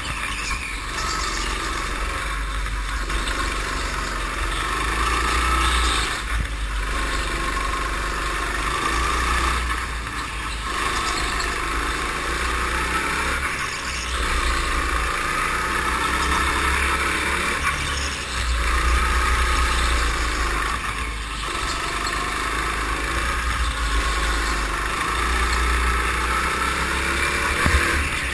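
Go-kart engine running hard on track, recorded on board, its note dropping briefly and picking up again several times as the kart takes a series of corners, over a heavy low rumble.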